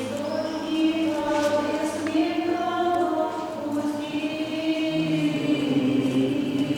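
A choir singing Orthodox liturgical chant, voices holding long sustained notes.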